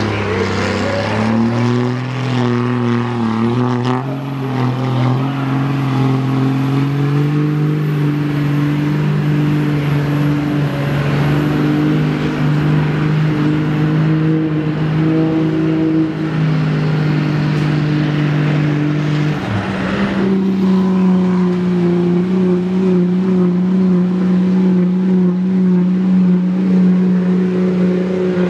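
Pickup truck engines at full throttle pulling a weight-transfer sled. The engine note climbs over the first couple of seconds and holds high. About 20 seconds in it switches to a second truck's diesel running at a steadier, higher pitch.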